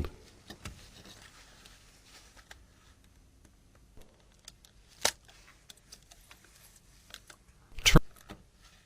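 Small sharp clicks and faint scrapes of hands and tools handling the plastic and metal parts of a Nokia 3200 mobile phone as it is taken apart. The loudest is a double click near the end.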